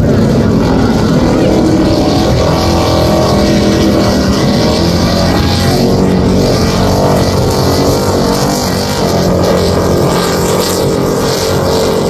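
Offshore racing powerboat's engines running loud at speed as the boat passes, a steady engine note whose pitch wavers slightly midway.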